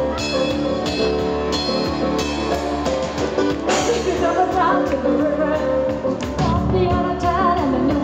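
Live rock band with a horn section, drum kit, electric guitar and keyboard playing loudly, with vocals coming in over the band about halfway through.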